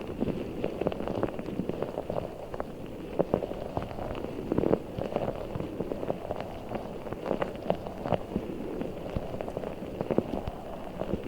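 A giant orbeez (water-bead) ball being squeezed and handled: a continuous wet, crackly squishing with many small irregular clicks.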